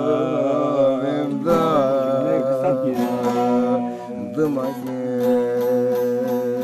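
Turkish folk song with bağlama (saz) accompaniment: the end of a sung phrase with wavering ornaments passes, about a second and a half in, into a strummed instrumental passage.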